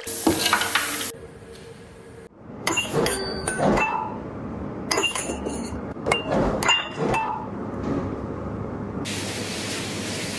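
Metal parts and tools clinking and knocking in several quick groups of sharp taps, with a short burst of hiss at the start and a steady hiss from about nine seconds in.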